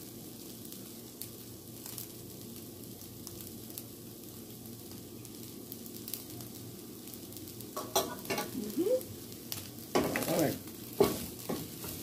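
Fried rice sizzling steadily in a frying pan. From about eight seconds in, a wooden spatula stirs and scrapes it, with sharp scrapes and knocks against the pan.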